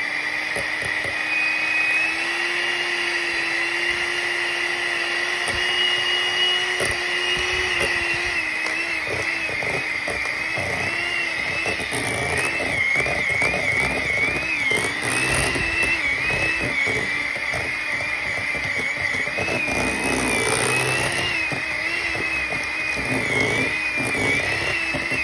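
Electric hand mixer running, its beaters whipping cream cheese and shredded cheese in a bowl: a steady motor whine whose pitch holds for the first several seconds, then wavers up and down as the beaters work through the thick mixture.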